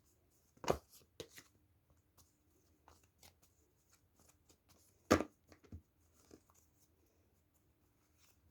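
Tarot cards being handled and shuffled, with faint scattered clicks and two sharp slaps, about a second in and about five seconds in.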